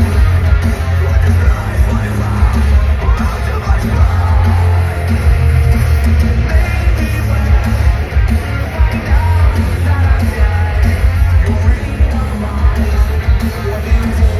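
Loud live rock band playing, with a vocalist yelling and singing over heavy bass and drums.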